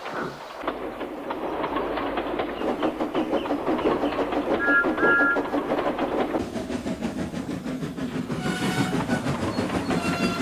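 Steam locomotive running along with quick chuffs and wheel clatter. Two short whistle pips sound about halfway through, and a longer whistle comes a little under two seconds before the end.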